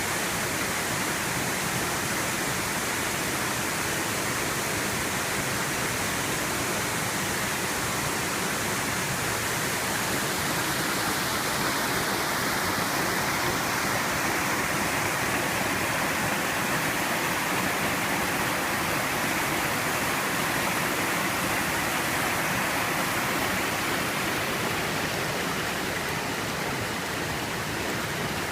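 Twin waterfall pouring steadily: a constant, even rush of falling water.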